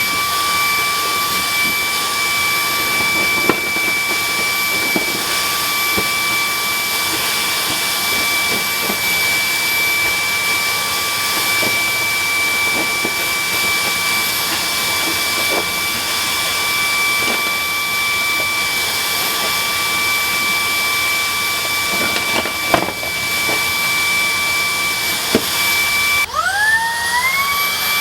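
Cordless vacuum cleaner motor running with a steady high whine and a strong rush of air, with a few scattered clicks. Near the end the motor drops and spins up again with a rising whine.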